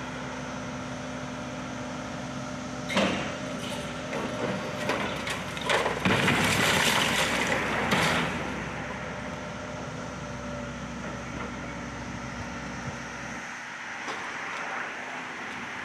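Case CX160D excavator's diesel engine running steadily while its bucket breaks stones off the top of a stone chimney. A knock about three seconds in, then scattered clattering, then a loud crash of stone masonry falling onto the rubble that lasts about two seconds before the engine hum carries on alone.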